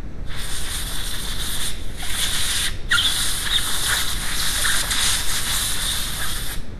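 Compressed air hissing from a blow gun for about six seconds, starting and stopping abruptly, with two short breaks about two seconds in and again just before three seconds.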